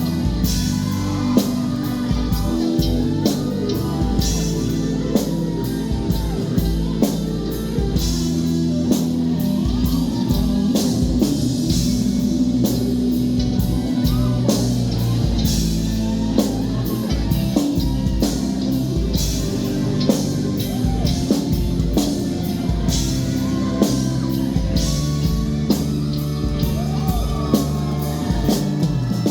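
Live rock band playing electric guitar over a drum kit keeping a steady beat.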